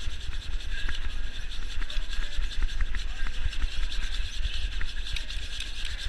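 Curling brooms sweeping hard and fast on the ice ahead of a sliding curling stone, a steady rapid scrubbing with a low rumble underneath. The sweeping is to carry a stone that is slowing down fast.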